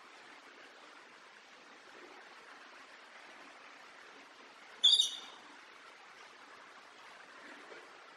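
Faint, steady outdoor background hiss, broken about five seconds in by a single short, high-pitched chirp.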